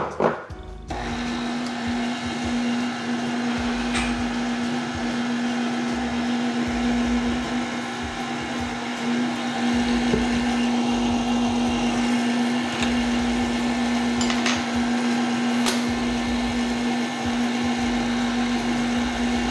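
KitchenAid tilt-head stand mixer switched on about a second in and running steadily, its flat beater mixing eggs into pumpkin muffin batter in the stainless steel bowl: a steady motor hum, with a knock just before it starts and a few light clicks.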